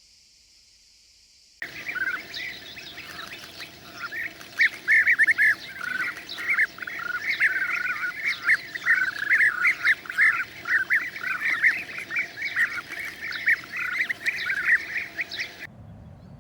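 A dense chorus of bird calls, many short, rapid notes from several birds at once. It starts abruptly about a second and a half in and cuts off just before the end.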